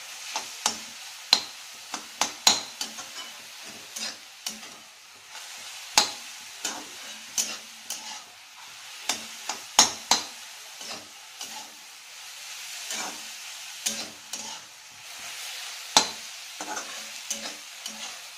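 Metal spatula scraping and knocking against a metal kadhai in irregular clicks while grated beetroot sizzles steadily in ghee. The beetroot is being sautéed until its water cooks off.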